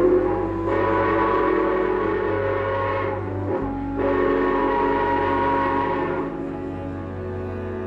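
Steam locomotive whistle blown in two long blasts, each a steady multi-note chord with a hiss of steam, over soft background music.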